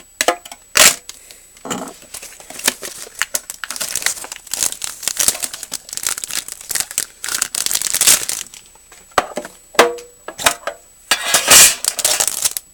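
Wrapping on a sealed box of trading cards being torn and crinkled open: irregular crackling and rustling, with louder rips about a second in and near the end.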